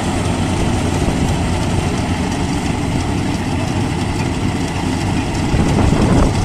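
Maxxi Bimo Evo Xtreme tracked combine harvester running steadily while harvesting rice, a loud continuous engine and machinery sound with a slight swell near the end.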